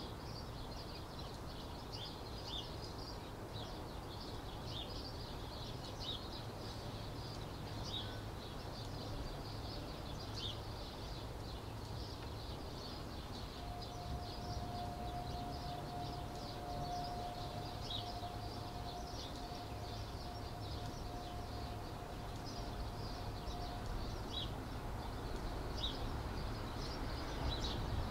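Outdoor ambience: small birds chirping in short calls over a steady low rumble. About halfway through, a steady single tone joins for roughly ten seconds, then fades out.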